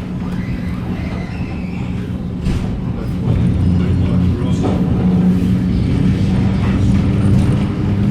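Red Rattler electric train: a steady hum over a low rumble, growing louder about three seconds in.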